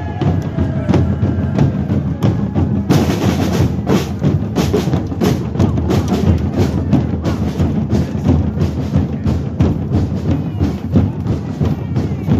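Parade drum band playing a fast, steady beat of drums and sharp wood-block-like clicks, with a short crash about three seconds in.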